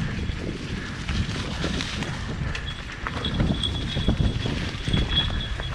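Wind buffeting the microphone with a heavy, uneven low rumble and scattered small knocks, and a faint high steady whine that comes and goes.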